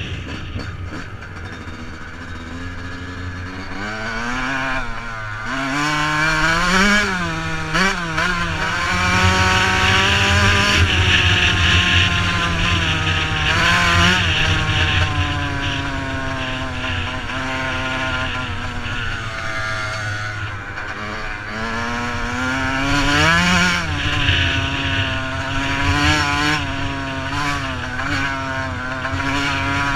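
2007 Yamaha YZ125's 125cc two-stroke single-cylinder engine, heard from on the bike while it is ridden, its revs rising and falling repeatedly as the throttle is worked.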